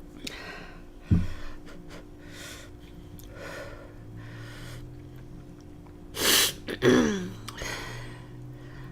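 A woman eating spicy noodles: a short low thump about a second in and faint mouth and breathing sounds, then a loud, sharp sneeze-or-gasp breath about six seconds in, followed by a short voiced sound falling in pitch.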